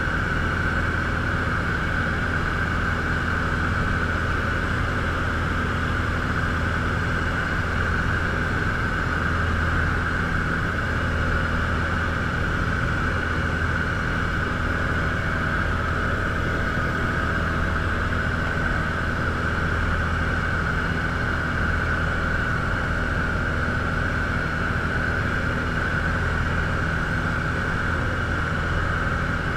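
Robin DR400 light aircraft's piston engine and propeller droning steadily in flight, heard from inside the cockpit.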